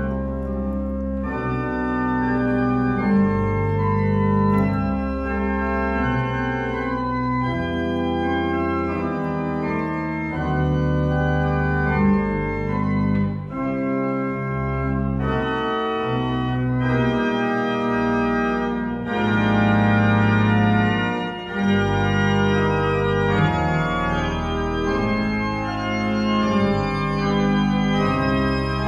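Church pipe organ playing the closing voluntary: full held chords over deep pedal bass notes, changing every second or two.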